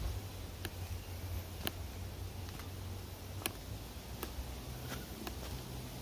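Footsteps on a hiking trail: sharp, irregular taps roughly once a second over a low rumble.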